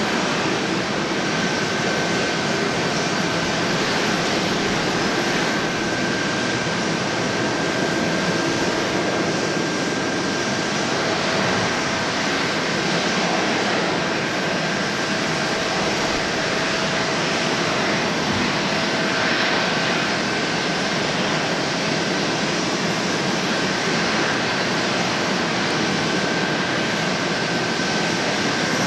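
Jet engines of a Boeing 787-9 airliner running steadily during pushback: a constant hiss with a steady high whine and a fainter lower tone.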